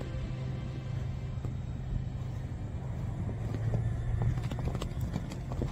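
A low, steady rumble while background music fades out over the first couple of seconds; near the end, horses' hooves start thudding on the ground in quick knocks, the last one sharp and loud.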